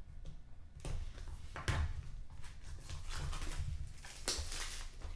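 Clear plastic wrap being peeled and torn off a small sealed trading-card box, crinkling and crackling in irregular rustles, the loudest about two seconds in and again near four seconds, as the box is handled.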